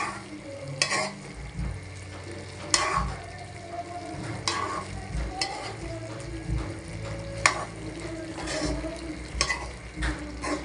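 A cooking utensil stirring chicken adobo in an aluminium pan, knocking and scraping against the pan about once a second at an irregular pace, over the sizzle of the simmering sauce.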